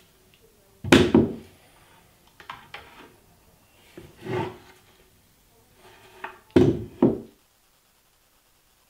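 Solid oak pieces of a lap desk knocking and rubbing together as it is handled: a loud double knock about a second in, lighter taps and a short rub in the middle, and another loud pair of knocks near seven seconds, after which it goes quiet.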